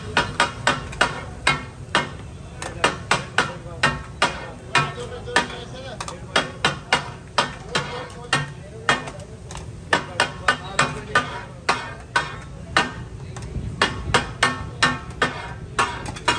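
Metal spatulas striking a large iron tawa griddle as fish is chopped and stirred for katakat: a quick, uneven clatter of sharp clanks, several a second, with brief lulls.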